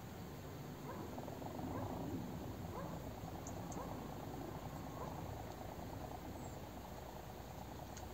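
Spinning reel being wound in, with a steady low purr, over the steady rush of the river current.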